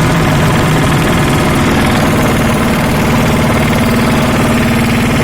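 Baby road roller's engine running steadily with a fast pulsing beat; its note shifts slightly higher about halfway through.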